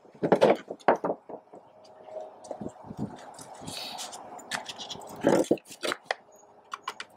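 Knocks and clatter of handling on a plywood workbench as a dual-cartridge adhesive dispensing gun is picked up, then a few short sharp clicks near the end as the gun is worked to lay a bead of gutter glue.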